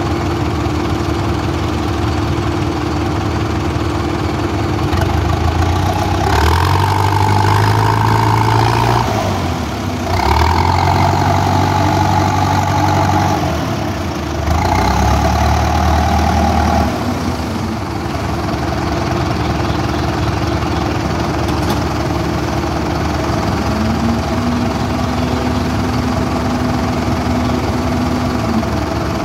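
Crawler dozer's diesel engine running steadily, then revving up three times for a few seconds each as the machine moves and works.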